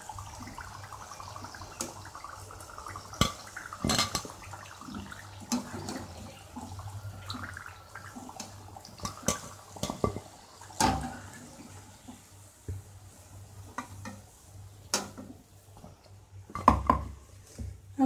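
Hot frying oil sizzling in a kadhai while fried gujiyas are scooped out with a wire-mesh skimmer that clinks and taps against the pan several times. The sizzle thins out in the second half as the pan empties.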